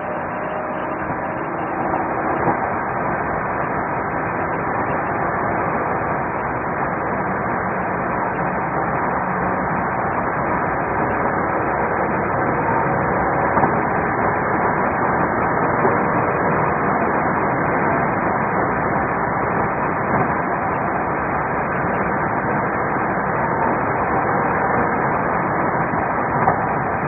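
Steady road, tyre and engine noise of a patrol car driving at highway speed, heard from inside the car on a muffled, low-fidelity dashcam recording, with a few brief knocks.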